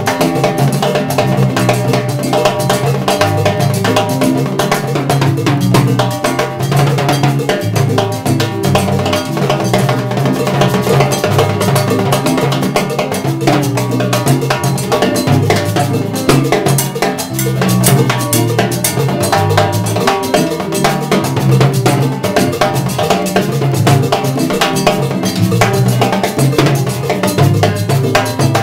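Salsa band playing live: timbales and a mounted block struck in a steady, driving cowbell-like pattern, over keyboard and an electric bass line.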